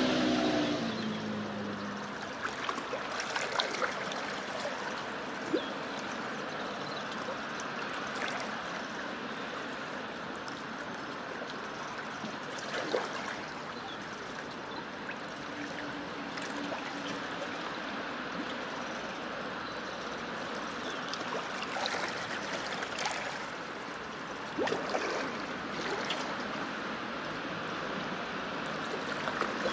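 Underwater sound picked up by a submerged camera: a steady rushing hiss of sea water, with scattered faint clicks and a few sharper ticks.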